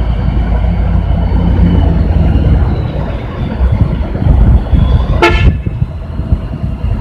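Heavy truck's diesel engine running as the truck pulls slowly past with its load, with one short horn toot about five seconds in.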